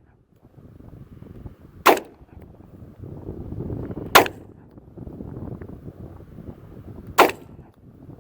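Three single shots from a Hi-Point C9 blowback 9mm pistol, spaced about two to three seconds apart, with a low rumble between them.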